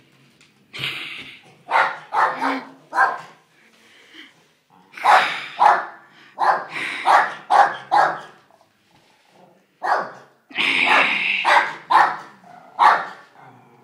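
Dogs barking repeatedly in several quick volleys, with a couple of longer drawn-out barks among them.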